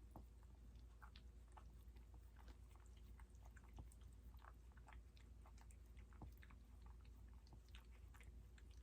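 Faint, irregular wet clicks and smacks from a mother Yorkshire terrier's mouth as she works on her newborn litter, over a low steady hum.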